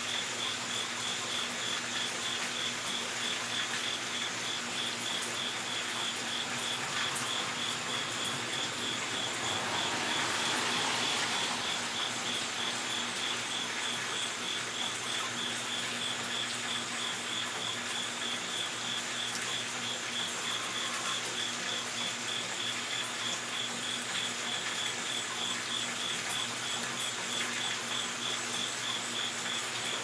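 Cricket chirping: a continuous high, rapidly pulsing trill that keeps going unchanged. About ten seconds in, a brief rush of noise swells up over it and fades.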